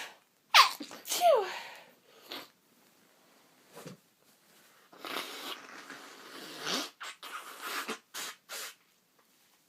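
A woman sneezing twice in quick succession about half a second in, each sneeze loud with a falling voiced cry. Sniffs and noisy breaths follow through the rest.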